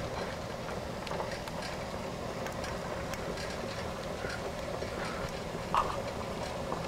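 Pot of pasta water at a hard rolling boil on an electric coil stove: a steady bubbling hiss with scattered small pops and clicks, and one short clink a little before the end.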